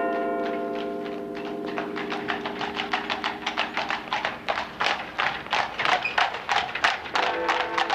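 Church bells ringing and dying away over the first couple of seconds. Then the hoofbeats of a pair of horses drawing a carriage along a paved street come in as a quick, even clatter that grows louder as they approach. A few steady musical notes come in near the end.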